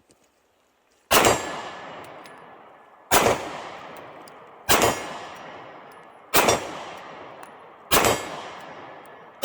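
Pistol shots from a 9 mm Glock 43X, fired one at a time about every one and a half to two seconds. Each shot trails off in a long echo. There are five shots, with a sixth right at the end.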